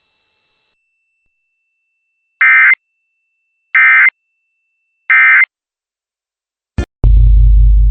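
Emergency Alert System end-of-message (EOM) data burst: three short, identical bursts of harsh digital tones, evenly spaced, marking the end of the alert. Just before the end comes a click, then a sudden loud deep boom.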